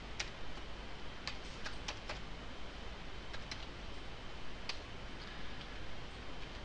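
Computer keyboard keystrokes: scattered single key clicks at an irregular, unhurried pace as a word is typed, over a steady background hiss.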